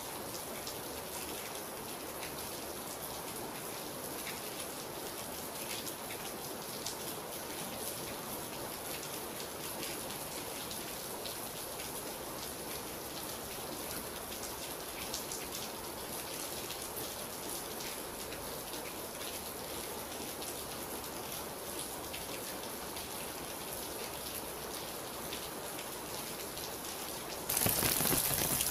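Steady rain, an even hiss with individual drops ticking on a surface. About a second before the end the sound abruptly turns louder and harsher.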